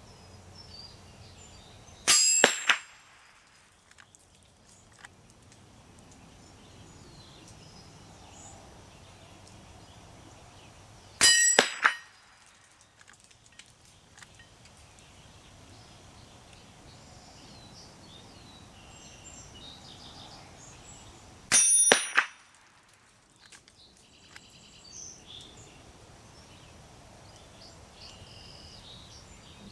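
Three shots from a Henry .22 LR lever-action rifle, about ten seconds apart, each followed a moment later by the clang of a steel target ringing as it is hit at 50 yards. Faint bird chirps between the shots.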